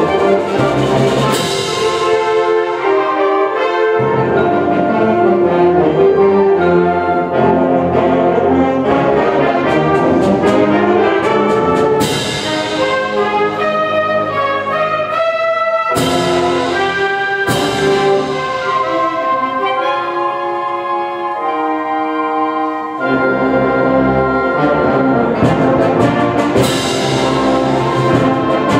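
Student symphonic band playing a concert piece, brass to the fore over woodwinds, with several loud percussion strikes that ring on. The low instruments drop out for stretches and come back in full about three quarters of the way through.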